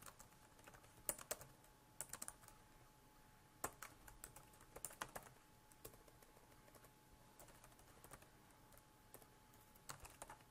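Faint computer keyboard typing: short clusters of keystrokes with pauses between them, including a longer lull before a last burst near the end.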